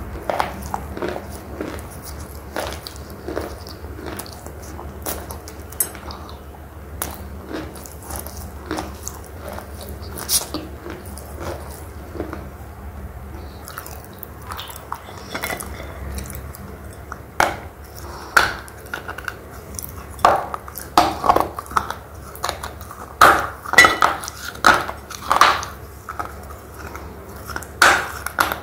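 A person chewing thick red slate pencil pieces, which crunch crisply and irregularly. The crunches come louder and faster in the second half, with a fresh bite near the end.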